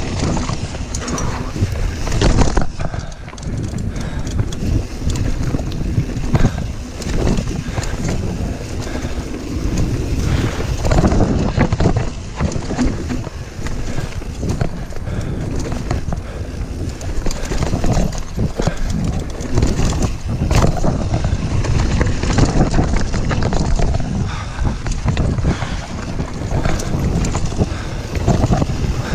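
YT Jeffsy full-suspension mountain bike riding fast down a woodland dirt singletrack: tyre roar on dirt and roots, with constant irregular rattles and knocks from the bike over the bumps. Wind buffets the microphone.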